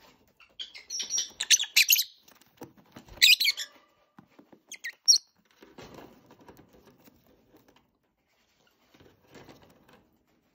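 Lovebirds chirping in quick, high-pitched bursts during the first half, then softer rustling near the middle and again near the end.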